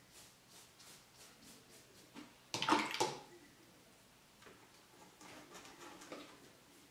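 Wet watercolour brush stroking back and forth across paper, laying a wash over wax-resist marks: soft, repeated brushing strokes, with one louder, brief rustling sound about two and a half seconds in.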